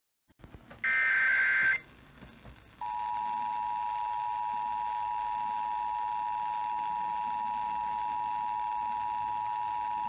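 Emergency Alert System test received on FM and played through a Midland radio's speaker. About a second in there is one shrill, warbling burst of SAME header data lasting about a second. A second later comes the steady two-tone EAS attention signal, held at an even level.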